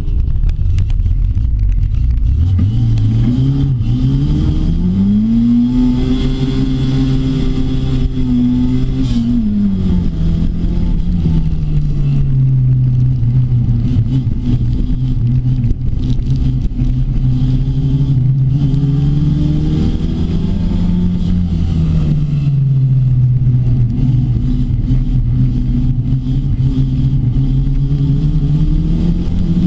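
Rookie rod race car's engine heard from inside the cockpit while racing, over a constant rumble. The revs climb about two seconds in and hold high, drop around nine seconds, rise again near twenty seconds, fall, and climb once more near the end.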